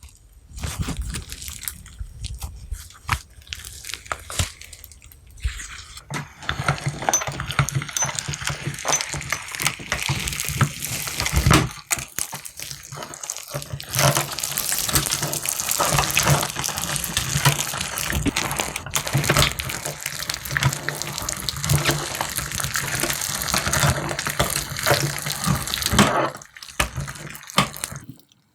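Wet slime being worked, with dense squelching and crackling and many small pops.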